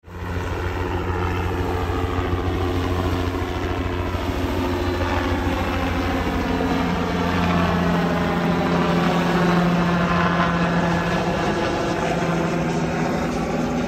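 Small helicopter flying overhead: a rapid, steady beat of the main rotor over a constant engine hum.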